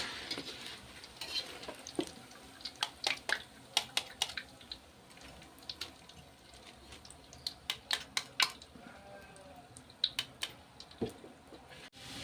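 A cooking utensil clinking and scraping against a pan during stir-frying: irregular sharp knocks, with a faint sizzle underneath.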